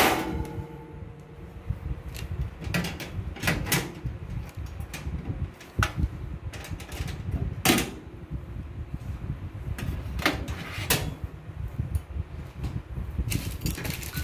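Irregular knocks and metallic clinks every second or two as the wire rack and fittings of a Mito MO-999 electric oven are handled on and inside its stainless-steel cavity, over low rumbling handling noise.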